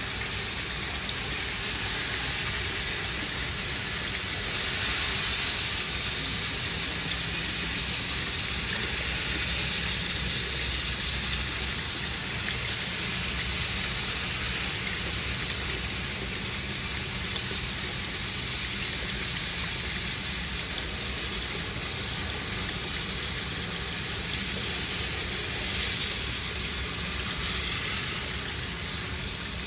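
A steady stream of water pours from an open brass ball valve and splashes into a partly filled plastic bucket. It is water being drained off a crane's gear oil sump. A steady low rumble runs underneath.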